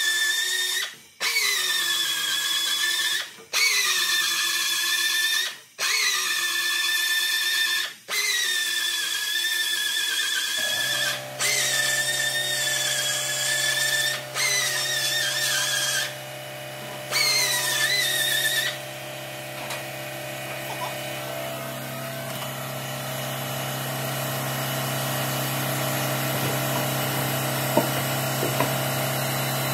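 Electric drill spinning a sanding bit in the center pilot hole of a plywood wheel, run in bursts of about two seconds with brief pauses. Its whine jumps up at each restart and sags as it bites into the wood. It stops about two-thirds of the way in, while a steady low hum that began partway through carries on.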